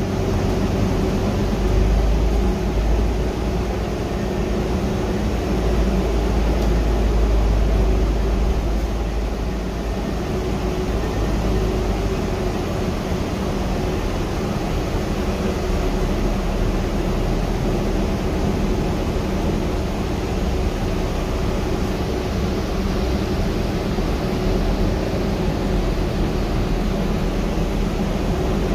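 Cabin noise inside a Gillig 35-foot hybrid trolley-replica bus: a steady rumble of the running drivetrain with a steady hum, the deepest part of the rumble easing off about twelve seconds in.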